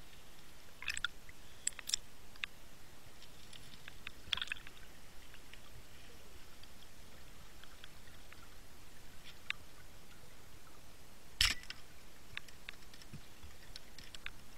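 Underwater recording: scattered small clicks and crackles over a faint hiss, and about eleven seconds in one sharp, loud crack, a speargun firing.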